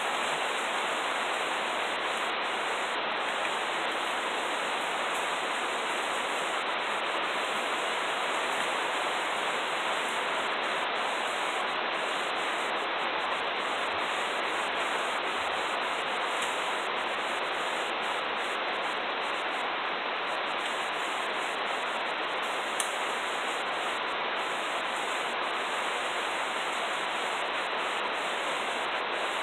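Steady rain falling, an even hiss with no change, and a single brief click about two-thirds of the way through.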